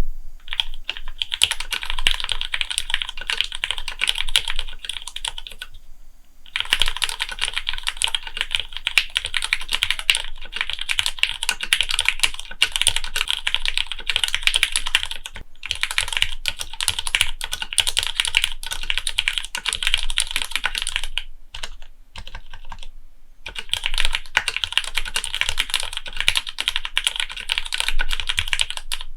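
Continuous fast typing on a custom gasket-mount 60% mechanical keyboard, the Monstargear Sangeo60, with lubed Cherry MX Black linear switches: a dense run of key clacks. It pauses briefly about six seconds in and again around twenty-two seconds.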